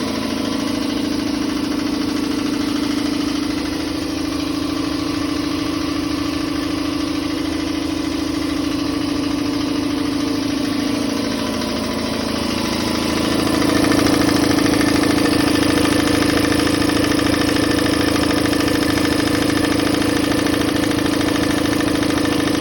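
Campbell Hausfeld air compressor running steadily on its test run, its motor and pump building pressure in the tank with a steady hum. The hum dips briefly a little past halfway, then runs louder.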